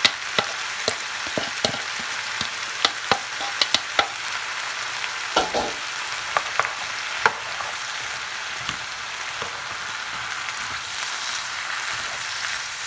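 Diced zucchini, tomato and fresh corn kernels sizzling in a hot skillet while a spoon stirs them, with sharp clicks and scrapes of the spoon against the pan, mostly in the first half; after that mainly a steady sizzle.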